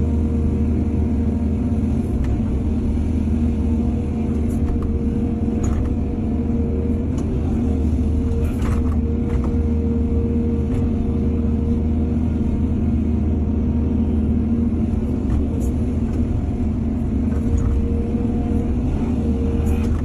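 Excavator's diesel engine running steadily with a constant low hum, with a few faint clicks and knocks over it.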